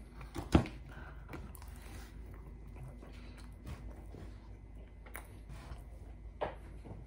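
A bite into a slice of pepperoni pizza about half a second in, sharp and brief, then quiet chewing with scattered small mouth clicks.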